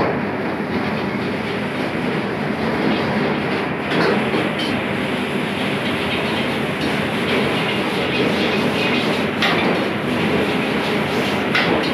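Stir-frying in a wok over a high-flame gas burner: a steady sizzle with the burner running, and a few sharp knocks of metal on the wok.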